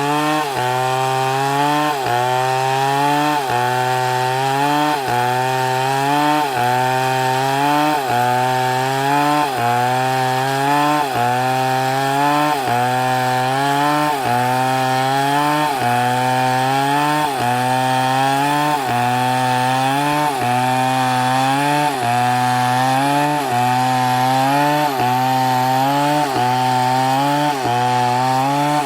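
Chainsaw cutting into a dead palm trunk. Its engine pitch dips under load and recovers in a steady rhythm about once a second.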